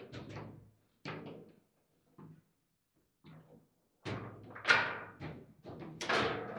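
Table football play: sharp knocks and clacks of the ball and rod players against the foosball table, spaced about a second apart, then quicker from about four seconds in, with the loudest bang shortly after.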